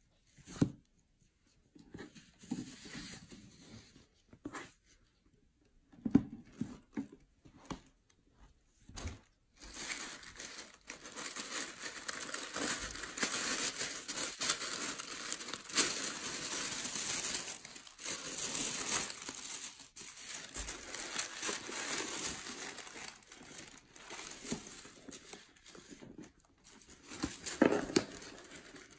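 Packaging being handled and torn open: scattered rustles and knocks for the first nine seconds or so, then continuous crinkling and tearing, with a few louder knocks near the end.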